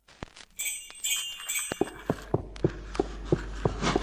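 Jingling bells and chimes ringing over a steady ticking beat of about three clicks a second, as music starts up.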